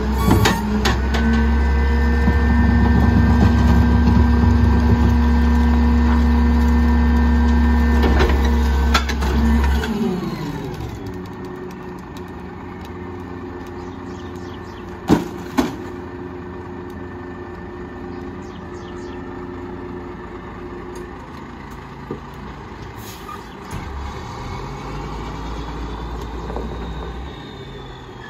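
Leach Sanicruiser rear-loader garbage truck engine running revved up with the packer working, then dropping back to a steady idle about ten seconds in. Two sharp thumps come about halfway through, and near the end the truck pulls away.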